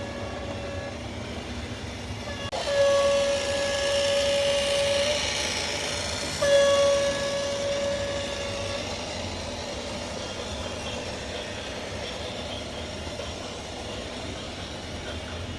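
Train horn sounding three long blasts on one steady pitch: the first ends about a second in, then two more of roughly two and a half seconds each, over steady train running noise.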